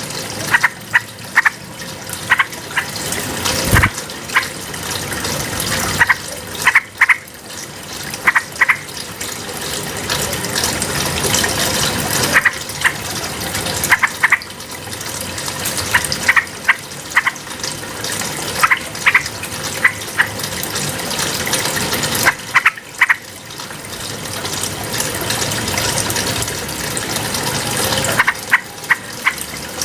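Yellow-vented bulbul singing in short bursts of quick, clear notes, a burst every few seconds, over a steady sound of rushing water.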